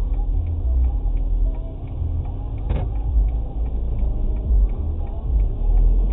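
Low rumble inside a car's cabin, its engine idling while the car stands still. Faint, evenly spaced ticking runs under it a few times a second, with a single short click about three seconds in.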